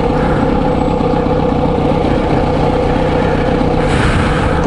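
Kawasaki Z900RS inline-four idling steadily through a K-Factory titanium full exhaust, with no revving. A brief rush of noise comes near the end.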